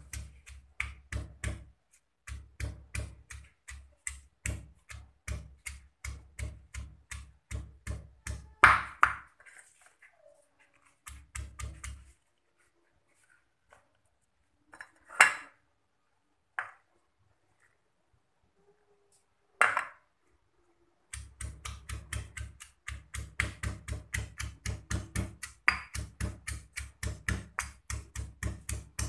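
Stone pestle pounding garlic and chillies in a stone mortar, grinding a spice paste: a steady run of knocks about three a second. The pounding stops for several seconds near the middle, with only a few single sharper knocks, then starts again.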